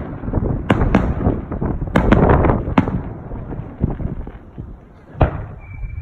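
Aerial fireworks shells bursting: a string of sharp bangs over a continuous low rumble of booms and echoes, the loudest bang about five seconds in.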